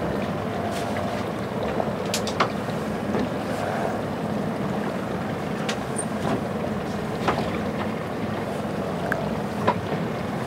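A boat's engine running steadily at low speed, with wind and water noise, and a few sharp clicks along the way.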